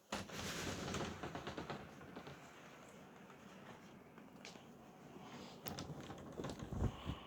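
Snowstorm wind noise on the microphone: a sudden rushing hiss that is loudest for the first second or so, then settles to a steady hiss, with scattered clicks and a few low thumps near the end.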